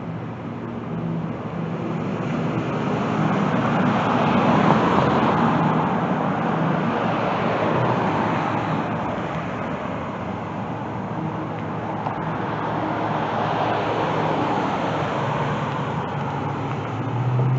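Road traffic: cars passing on a street, the noise swelling to a peak about five seconds in and rising again later on.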